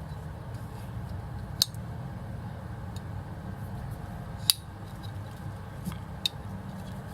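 Metal multi-tool being worked by hand: about five sharp metallic clicks as its folding tools snap open and shut, the hinges stiff and tight, over a steady low hum.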